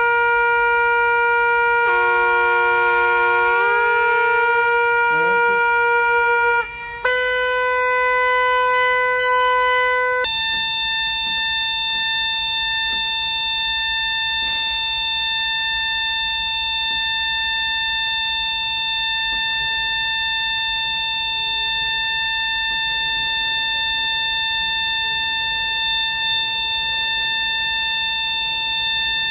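Ruffatti pipe organ sounding single held notes while a pipe is being tuned. Early on a note slides up in pitch over a second or two as the pipe is adjusted. After a short break a different note sounds, and about ten seconds in a higher note starts and is held steady for the rest.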